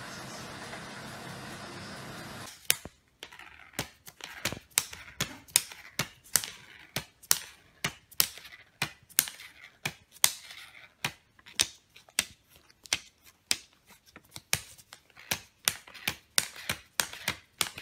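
A run of crisp clicks and crackles, about two a second and unevenly spaced, from a cat mouthing and licking a pile of plastic Canadian $100 banknotes. It follows a steady background hiss that stops about two and a half seconds in.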